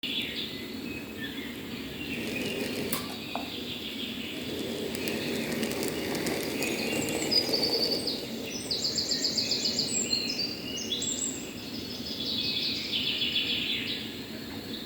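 Several songbirds singing, with short whistled phrases and a fast trill near the middle, over a steady low rushing noise.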